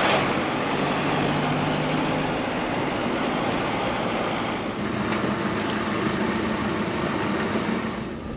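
Steady road and wind noise with a low engine hum from a moving vehicle. Right at the start an oncoming car rushes past close by.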